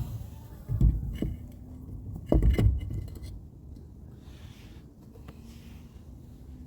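Two dull thumps about a second and a half apart, with light clicks and scrapes of metal parts being handled during wheel work.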